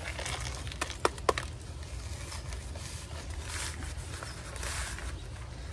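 Small plastic nursery pot of dry potting soil being handled and tipped: three light clicks about a second in, then a soft rustle of soil and plastic.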